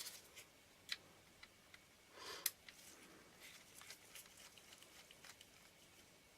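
Near silence with a few faint small clicks and taps of tools or parts being handled, and a short soft rustle about two seconds in.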